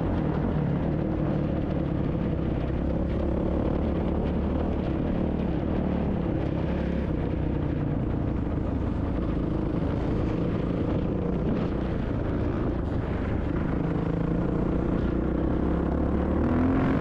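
Dirt bike engine running while being ridden, its pitch rising and falling gently with the throttle over a steady low rumble.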